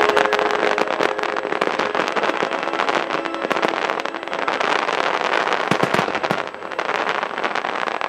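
Dense barrage of aerial firework bursts and crackle from a starmine (rapid-fire fireworks barrage), sharp reports coming many times a second with a brief lull about six and a half seconds in.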